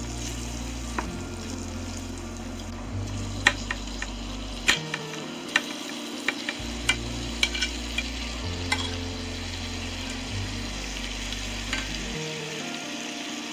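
Onions sizzling in oil in a frying pan while being stirred. From about three seconds in, about a dozen sharp clicks of a metal utensil on a plate and the pan as pieces of pan-fried pork are scraped into the sizzling pan.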